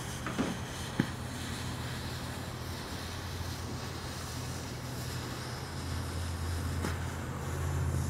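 Steady outdoor background of wind on the microphone with a low steady hum underneath, a faint tick about a second in, swelling slightly near the end.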